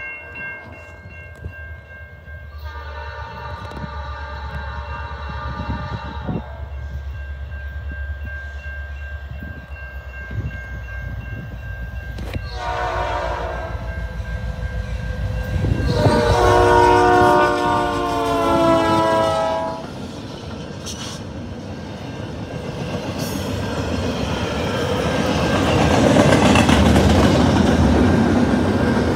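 Grade-crossing signal bell ringing steadily while a Canadian National diesel freight approaches, its air horn sounding three long blasts. The last blast is the loudest and bends slightly in pitch as the locomotives reach the crossing. After that, the rumble and clatter of double-stack intermodal cars rolling past builds up.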